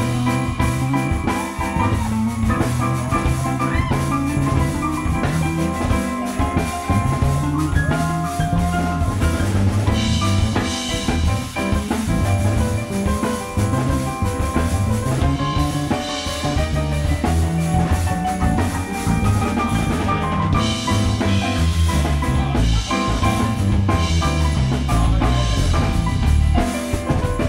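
Live band playing instrumental music: a drum kit with cymbal washes that come and go, a moving electric bass line and keyboards.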